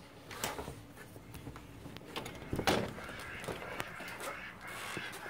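Storm door being opened: a few clicks and knocks from the handle and latch, the loudest about 2.7 s in, with a dog moving at the doorway.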